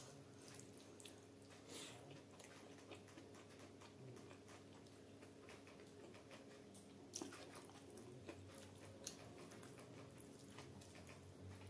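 Faint wet chewing and the soft squish of rice and curry being mixed by hand on a steel plate, with a few sharp clicks about seven and nine seconds in.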